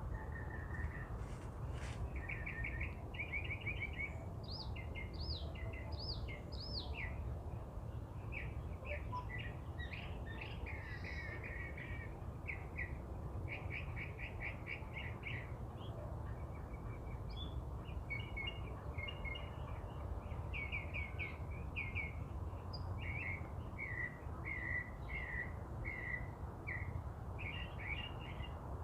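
Northern mockingbird singing continuously: a long string of varied phrases, many made of quick repeated notes, switching from one phrase type to the next. A steady low rumble of background noise runs underneath.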